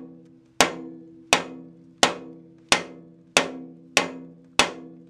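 About seven steady blows of a wooden mallet on an ABS pipe drift pressed against a jointer cutter-head bearing, roughly one every two-thirds of a second. Each is a sharp knock followed by a short ringing tone. The bearing is being tapped out of its casting.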